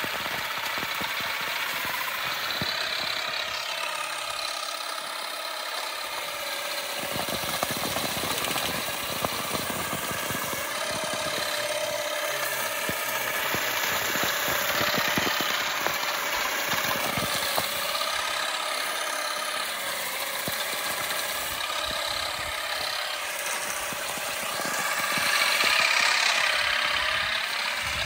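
Electric olive harvester, run off a tractor's battery, working: a steady motor whine that wavers in pitch over a fast, dense clatter, swelling louder for a couple of seconds near the end.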